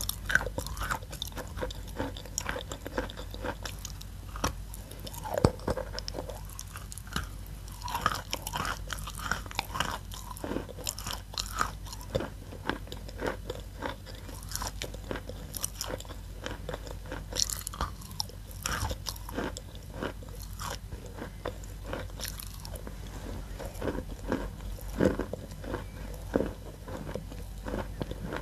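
Lump of chalk being bitten and chewed: a continuous run of irregular dry crunches, with a louder crack about five seconds in and another near the end.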